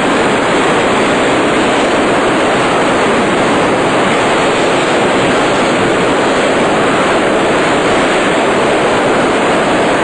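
Loud, steady rush of water churning and frothing as a large pump's discharge pours into its outlet basin.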